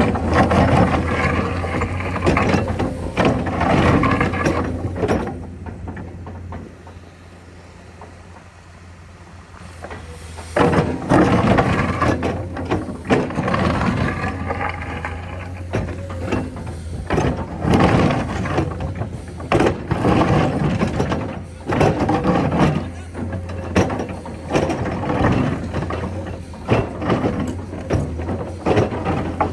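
Heavy road-paving machinery working: a steady low engine hum under irregular mechanical clattering and rattling, which dies down for a few seconds about a fifth of the way in and then picks up again.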